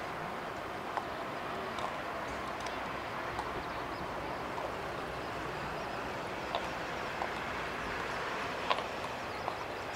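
Steady, distant jet-engine noise from a Boeing 747-400 freighter taxiing at low power, with a few short clicks and chirps scattered through.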